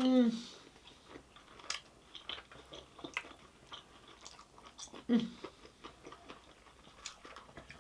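Close-miked chewing and mouth sounds, with scattered small crunches and smacks. A short hummed "mmm" comes at the start and another brief one about five seconds in.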